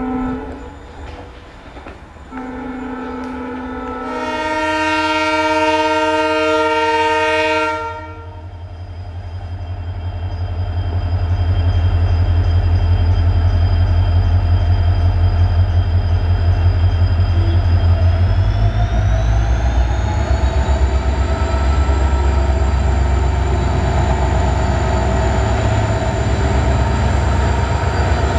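Diesel locomotive horn sounding: brief toots, then a long, loud blast from about four to eight seconds in. After it, an ALCO diesel locomotive's engine rumble builds as the train approaches and passes close, with a high turbocharger whine that rises in pitch past the middle and then holds.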